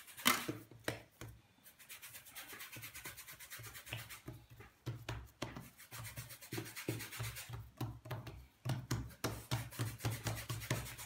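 Hands working and pressing soft yeasted colomba dough on a work surface: rubbing and handling noises with irregular small knocks. About halfway through comes a quick run of soft thumps, about three a second.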